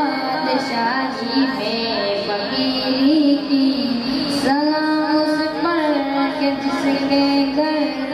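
A boy sings a naat, an Urdu devotional poem in praise of the Prophet, solo into a microphone over a PA. He holds long melodic notes with small ornamental turns, and a new phrase begins about four and a half seconds in.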